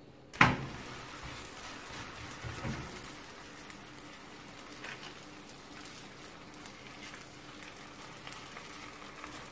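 A sharp knock about half a second in, then msemen dough, spread with oil and laid on a hot cast-iron griddle pan, sizzling steadily with light crackles.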